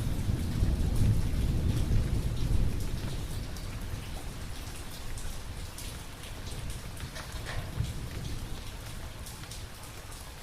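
Thunderstorm: a low thunder rumble dies away over the first few seconds, leaving steady rain with many individual drops hitting close by.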